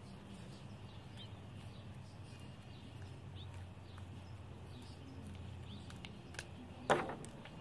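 Faint steady background hum with scattered short, high bird chirps, and one sharp knock near the end.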